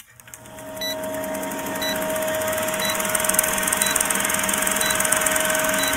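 Film-projector countdown sound effect: a steady whirring clatter and hiss over a steady hum, with a short tick about once a second, fading in over the first two seconds.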